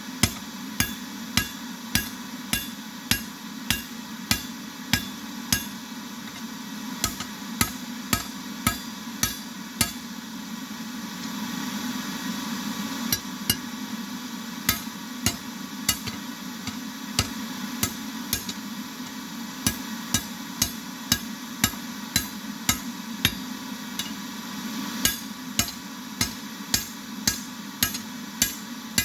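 Hammer blows on metal at an anvil, about two ringing strikes a second, pausing for a few seconds partway through before starting again. A steady low hum runs underneath.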